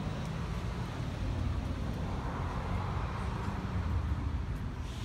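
Steady low outdoor rumble, with a brief hiss near the end.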